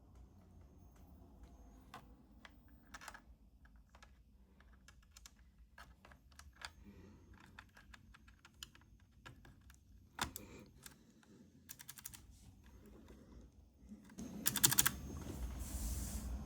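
Faint, irregular clicking of mechanical keyboard keys, scattered single presses rather than steady typing. Near the end a louder stretch of rustling with a few sharp clicks.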